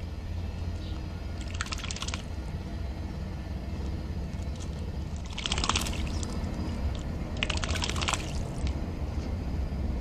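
Eurasian magpie bathing in a shallow tray of water, beating its wings and splashing in three short bursts, about a second and a half, five and a half and seven and a half seconds in. A steady low rumble sits underneath.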